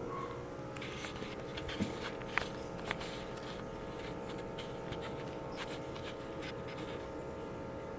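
Quiet room tone with a steady electrical hum and a few faint short clicks about two to three seconds in.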